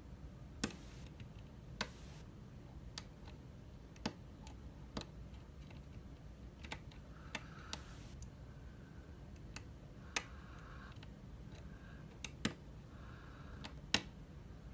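Lock pick and pry-bar tension tool working the pin stack of an Abus C83 euro cylinder: irregular sharp clicks as pins are lifted and set, with a few faint short scrapes of the pick in the keyway.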